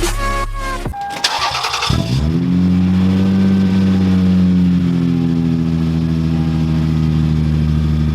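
Background music cuts off about a second in; a car engine is cranked, catches, rises briefly in revs and settles into a steady fast idle.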